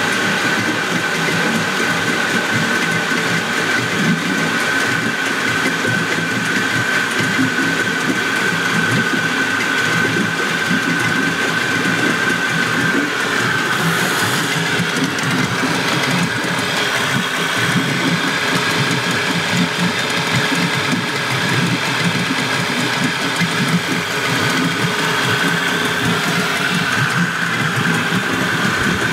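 1986 Spirit 20 hp outboard, a rebadged Suzuki two-stroke, running steadily with a held whine over the engine note; the pitch wavers briefly about halfway through.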